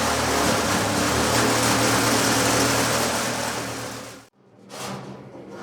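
A machine running steadily, a loud hiss with a low hum under it, that cuts off suddenly about four seconds in; quieter knocking and handling noises follow.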